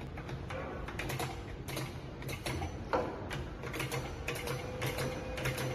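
Hollow bead making machine starting to run: irregular mechanical clicking over a low motor hum, with a steady whine coming in about three seconds in.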